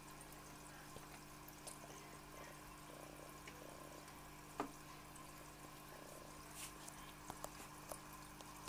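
Small aquarium air pump humming steadily at a low level, with faint water sounds in the tank as a hand moves in the water. A sharp tick about four and a half seconds in, and a few smaller ticks near the end.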